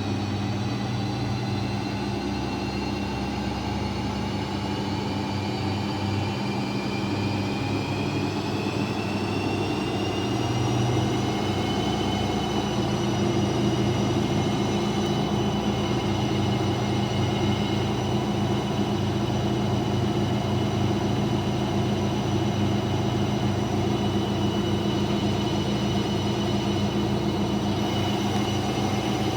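Daewoo DWD-FT1013 washing machine spinning an unbalanced load: the drum rumbles steadily while the motor's whine rises in pitch over the first dozen seconds as it speeds up, then holds steady at spin speed.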